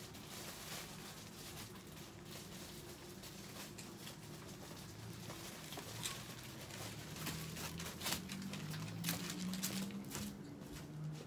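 Plastic tarp crinkling under a person's shifting weight, with scattered light taps and clicks; a low hum comes in about halfway through.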